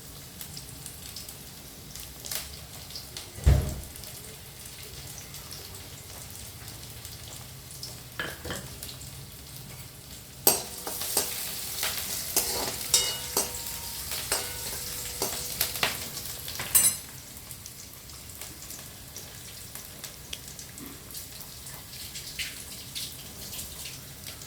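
Oil sizzling and crackling in a pan while a dal-fry tempering is made, with a single knock about three and a half seconds in. From about ten seconds in, the crackling grows loud and dense for some six seconds, then stops abruptly.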